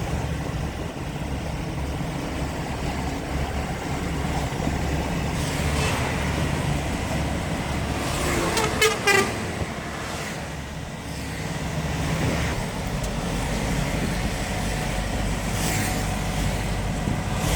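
Small truck's engine running steadily while driving, with a vehicle horn sounding in two short toots about nine seconds in.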